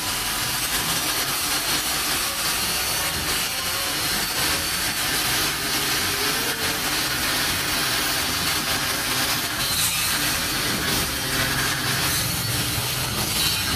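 Steady, loud rushing noise spread evenly from low to high pitch, with no clear tone or rhythm.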